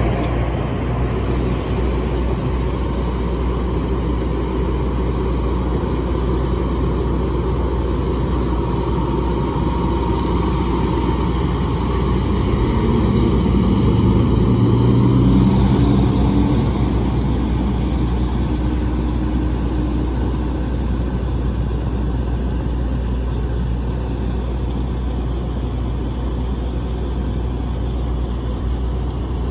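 Fire engine's diesel engine driving past, growing louder as it passes about halfway through and then easing off as it pulls away, over a steady low engine rumble.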